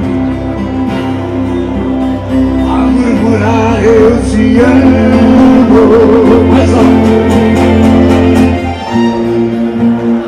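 Live gaúcho folk music from a small acoustic band: acoustic guitars and keyboard. A wavering, singing melody line rides over them from about two and a half seconds in until about nine seconds.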